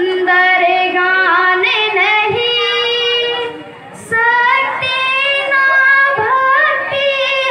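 A girl singing solo into a microphone, holding long notes that glide between pitches. She breaks off briefly about halfway through, then goes on singing.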